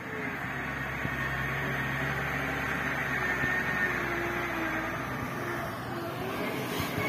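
Diesel engine of a Mitsubishi tanker truck running at low speed as the truck drives toward and close past, its steady engine note growing louder as it nears.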